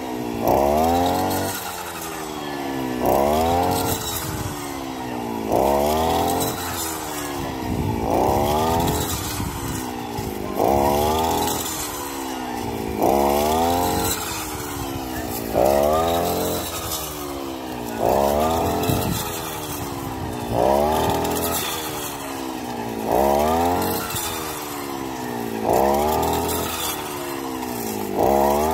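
CG420 two-stroke brush cutter cutting fodder maize, its engine revving up sharply and dropping back about every two and a half seconds as it is swung through the stalks.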